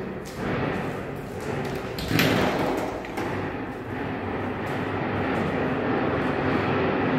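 A closet door being opened, with a sharp knock about two seconds in, over steady background noise.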